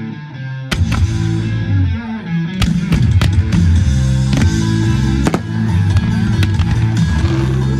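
Rock music with electric guitar playing, with several sharp firework bangs going off over it from about a second in.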